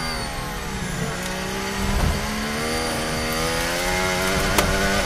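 Mercedes Formula 1 car's 1.6-litre turbocharged V6 hybrid engine at racing speed, heard onboard. Its note falls over the first two seconds, then climbs steadily as the car accelerates, with a sharp click about four and a half seconds in.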